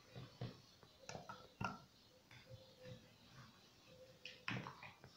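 Faint soft taps and knocks as pieces of raw meat are dropped by hand into an earthenware güveç pot and the hand works in a metal bowl, a handful of separate taps with the clearest about one and a half and four and a half seconds in.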